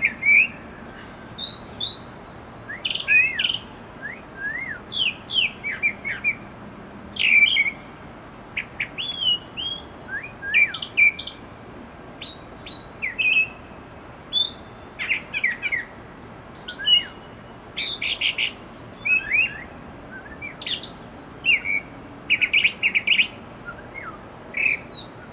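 Brown thrasher singing: a long run of short, varied whistled and chirping phrases with brief gaps between them, some phrases repeated.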